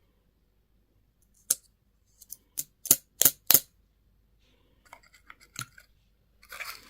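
Plastic candy and toy packaging being opened: six sharp clicks over about two seconds, then softer ticking and rustling, and a short burst of crinkling near the end.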